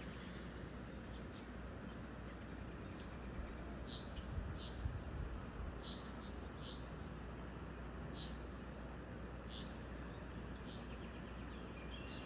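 Small birds chirping: short, high chirps about a second apart over a steady background noise.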